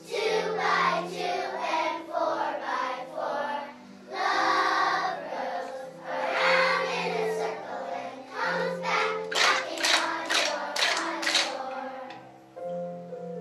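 Children's choir singing a song in unison over instrumental accompaniment. Near the end the voices stop and the accompaniment plays on alone.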